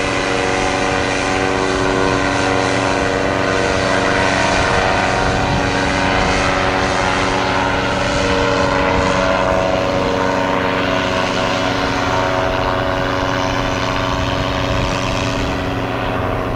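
Paramotor engines turning their propellers, droning steadily as powered paragliders fly overhead.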